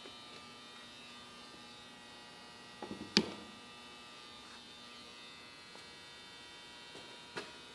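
Steady electrical hum, with a few sharp clicks about three seconds in and another single click near the end.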